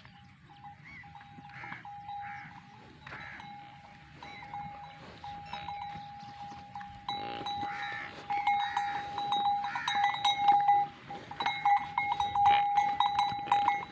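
Livestock bells ringing and jangling steadily, with many small clanks, and goats or sheep bleating. The bells get louder and busier about seven seconds in.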